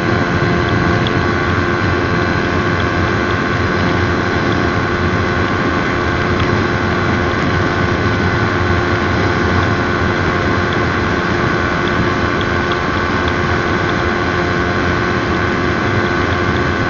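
2014 Honda CB150R's single-cylinder engine held at high revs at top speed, about 150 km/h, through a WRX R2 aftermarket exhaust, its pitch steady, with heavy wind noise.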